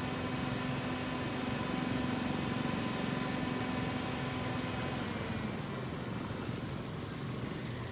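Car engine idling steadily, a low rumble with a hum of several steady tones over it that fades out about five seconds in.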